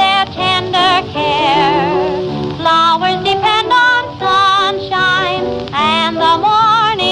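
Music from a 1920s popular-song recording: a melody line with wide vibrato, in short phrases, over band accompaniment.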